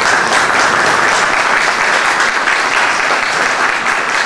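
Audience applauding: dense, steady clapping from a large hall of people.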